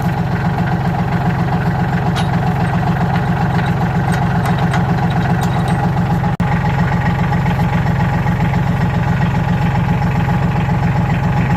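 Tractor engine idling steadily, with a momentary break in the sound about six seconds in.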